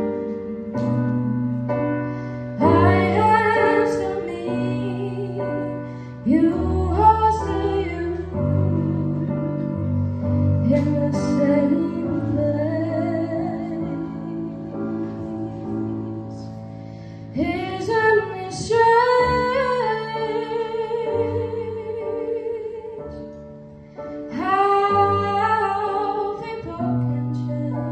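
A woman singing a slow song with an electronic keyboard playing sustained chords. Her phrases come in several stretches, with gaps where only the keyboard chords sound.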